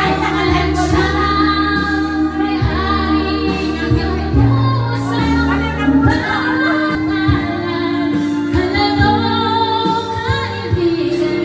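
A woman singing karaoke into a microphone over a backing track.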